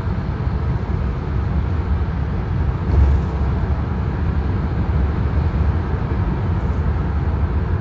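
Steady low rumble of road and engine noise inside a moving car's cabin, with a brief swell about three seconds in.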